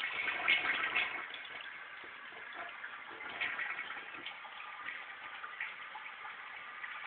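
Toilet flushing: water rushing through the bowl, louder for the first second or so, then a steadier, quieter rush.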